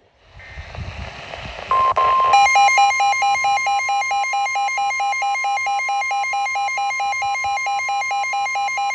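Midland WR120 weather radio receiving a new alert. First comes a short burst of hissy, warbling data noise (the SAME header), then the steady NOAA Weather Radio alert tone near 1 kHz. About two seconds in, the radio's own electronic alarm joins it, beeping about four times a second on top of the steady tone.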